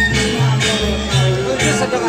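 Balinese gamelan music accompanying a dance, with metallophones ringing over deep gong tones that start afresh about once a second.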